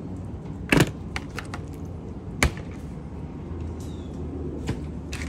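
Spiny lobster shell cracking and clicking as a head section is broken apart by hand: two loud sharp cracks about a second and a half apart, then a few lighter clicks. A low steady hum runs underneath.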